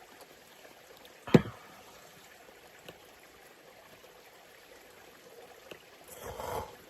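Steady rush of a mountain stream, with one sharp knock about a second in and a short rising noise near the end.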